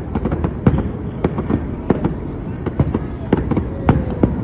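Fireworks going off, a continual run of sharp, irregular pops and bangs, several a second.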